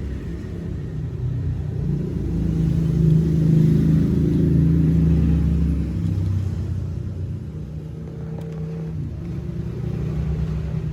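Low engine rumble of a motor vehicle, swelling about two seconds in and easing off after about six seconds.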